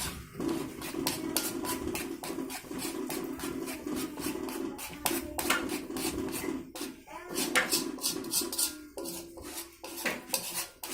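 A utensil scraping and clinking against a pot, with many quick strokes, as a thickened cooked fishing-bait mixture is stirred. Under it runs a steady low hum.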